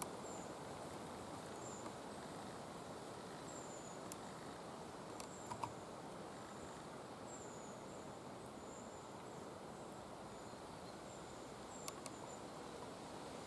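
Steady rush of a flowing river, with a small bird's short, thin, slightly falling high calls repeating every second or so, and a few faint clicks.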